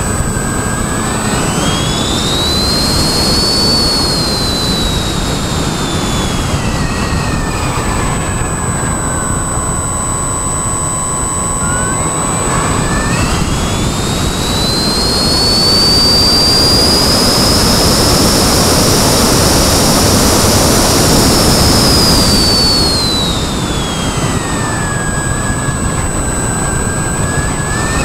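Radio-controlled model airplane in flight: its motor whines, the pitch rising and falling with the throttle, over steady wind rush on the microphone. The whine sinks low about a third of the way in, climbs to its highest and loudest through the middle, then drops again near the end.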